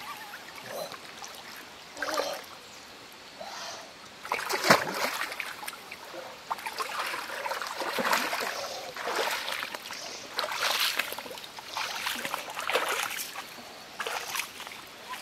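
River water sloshing and splashing around a person wading through it, in an uneven run of splashes with one sharper splash about five seconds in.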